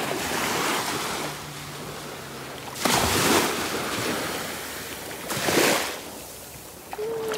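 Small sea waves breaking and washing up onto a sandy beach, with two louder surges of surf about three and five and a half seconds in.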